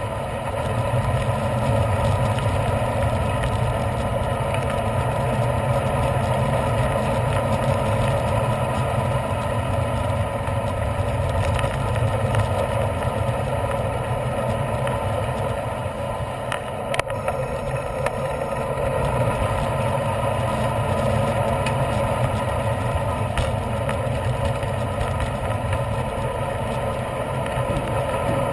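Steady rush of wind and tyre noise on a bicycle-mounted camera's microphone while riding a road bike, with a single sharp click about 17 seconds in.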